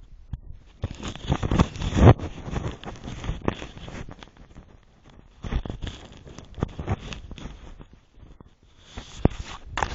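Footsteps crunching on packed snow, an uneven run of short crackling crunches that pauses briefly near the start and again shortly before the end.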